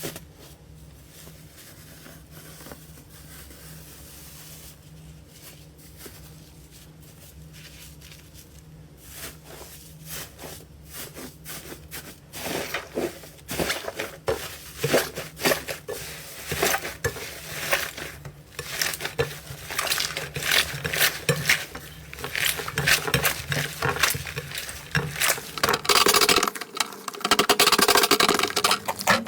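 Slime being handled, giving off many small clicking, crackling pops. These start sparse about a third of the way in and grow denser and louder toward the end, over a faint steady low hum.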